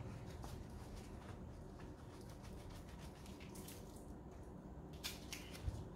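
Work gloves being pulled onto the hands: faint fabric rustles over quiet room tone, with a soft tick near the end.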